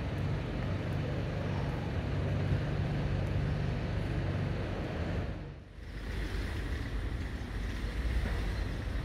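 Steady outdoor street ambience: an even low rumble with a hiss over it, dipping briefly about five and a half seconds in before carrying on.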